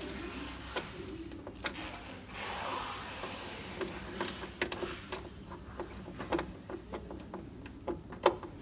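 Irregular small clicks, taps and scrapes of a screwdriver and cable ends as power cables are fastened to the terminals in a compressor's electrical control cabinet, with one sharper click near the end.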